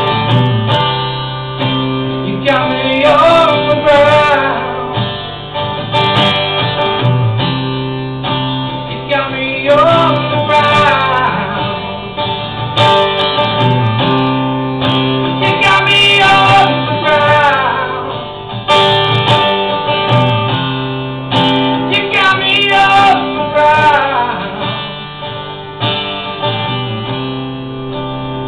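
A man singing solo while strumming an acoustic guitar, his sung phrases coming and going over steady strummed chords.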